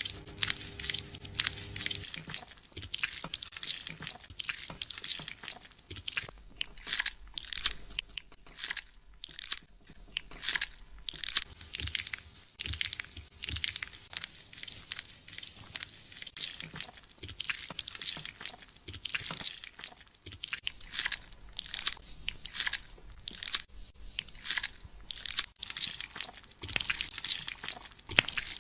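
Fingers scrubbing a customer's lathered hair and scalp during a salon hair wash, a steady run of short, rough rubbing strokes.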